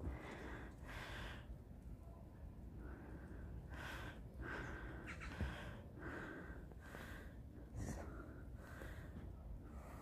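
Footsteps crunching in thick fresh snow, one step about every two-thirds of a second. The steps stop about a second and a half in and resume about two seconds later.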